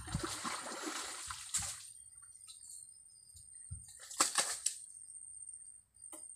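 Wet mud and water sloshing and squelching as hands dig through a muddy ditch, with a cluster of sharp wet splats about four seconds in.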